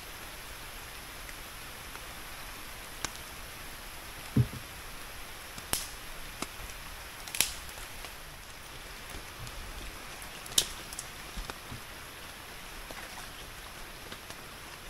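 Steady rain falling, an even hiss, with a few sharp taps of drops or knocks close by, the loudest about four and a half and ten and a half seconds in.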